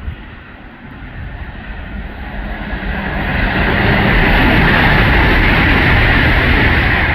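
Class 800 train moving through the station, its noise rising over about three seconds to a loud, steady hiss and rumble that holds to the end.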